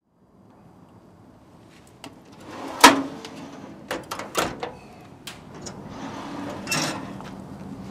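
Metal clanks and clicks as the steel firebox drawer of a wood oven is pushed in and the latches on its door are secured. The loudest clank comes about three seconds in, followed by several lighter knocks.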